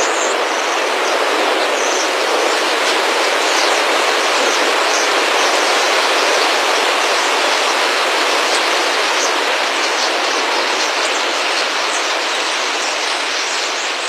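A dense flock of starlings passing close: a steady, loud rush of many wingbeats, with brief high chirps and whistles scattered over it.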